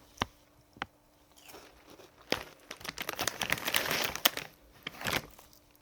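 Plastic snack wrapper crinkling and tearing as it is opened, with a few sharp snaps near the start and a denser stretch of crackling in the second half.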